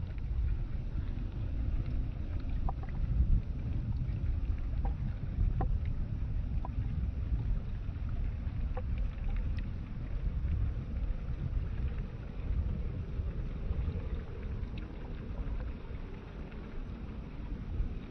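Wind buffeting the microphone: a steady, uneven low rumble. A few faint, short high chirps come and go above it.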